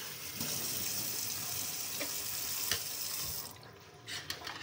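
Kitchen tap running onto mushrooms in a mesh strainer over a stainless steel sink as they are rinsed. The water cuts off about three and a half seconds in, followed by a few light knocks.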